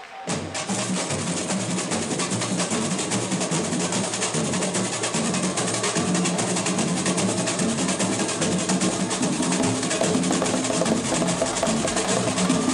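Samba percussion: drums playing a fast, steady rhythm with dense rapid tapping over a repeating low drum beat, starting abruptly about a quarter second in.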